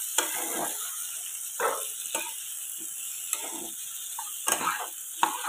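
Diced potato, onion and tomato with ground spices sizzling in oil in a non-stick kadai, a spatula stirring and scraping the pan in several irregular strokes as the masala is roasted (bhuna).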